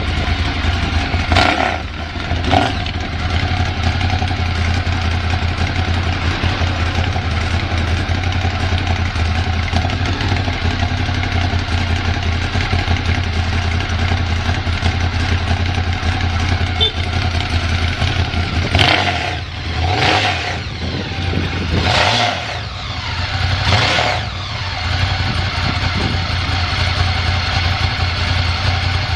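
Ducati Monster 1100 EVO's air-cooled 1078 cc L-twin running at a steady idle, blipped briefly twice near the start and four more times about two seconds apart later on. The idle is even, with no abnormal noise.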